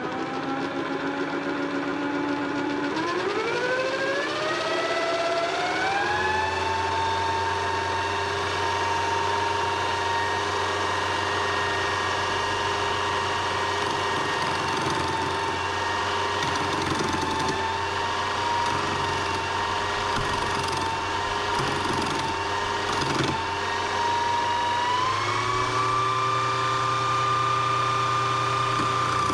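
Aldi benchtop wood-turning lathe running, its motor whine rising in pitch as the speed is turned up, first about three seconds in and again near the end. A chisel scrapes against the spinning wood.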